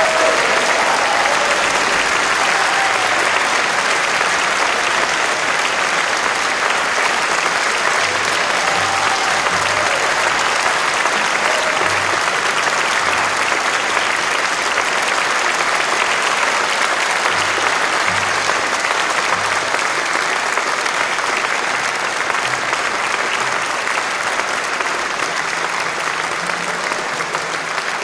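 Large concert audience applauding steadily at the end of a performance; the applause eases off slightly near the end.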